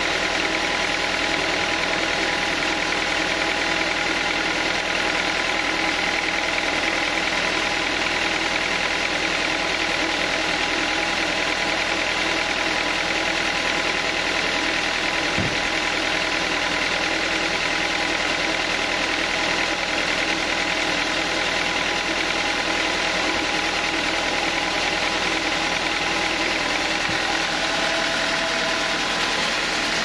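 Band sawmill running steadily with no cut under way: a constant mechanical drone with a steady high tone. A brief low thump comes about halfway through.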